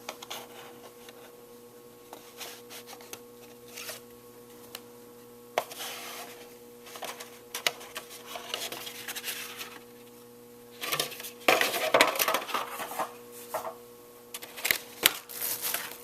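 A boxed set of trading cards being opened and handled by hand: cardboard and card stock rustling, sliding and tapping in irregular clicks, busiest about eleven to thirteen seconds in.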